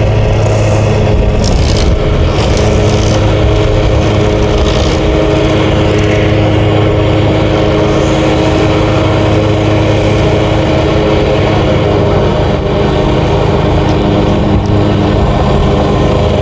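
Small gasoline lawn-mower engine running steadily at a constant speed, with a few light clicks early on.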